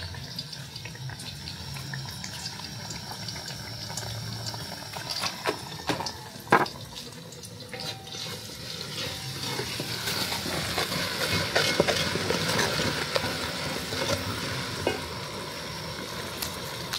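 Red pepper paste cooking in an aluminium pot, stirred and scraped with a wooden spoon, with a few sharp knocks about six seconds in. The stirring and sizzling grow louder from about ten seconds in.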